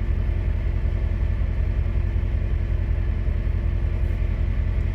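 Diesel pickup truck engine, a 2012 Duramax, idling: a steady low rumble with one steady hum over it.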